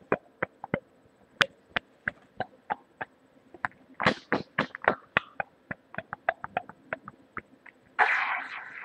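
Beatboxing picked up through a webcam microphone: a run of sharp mouth clicks and pops, about three a second, bunching up about four seconds in, then a short hissing breath near the end.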